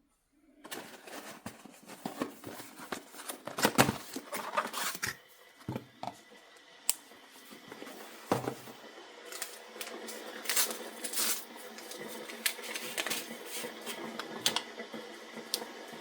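Light clicks, taps and knocks of cups and utensils being handled while tea is made. A steady low hum sets in about eight seconds in.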